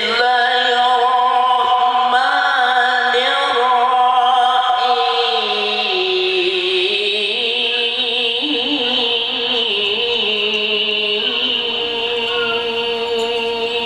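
Male voice in Quranic recitation (tilawah), one long unbroken melodic phrase held on a sustained vowel. It moves in ornamented turns, dipping lower about six seconds in and rising again.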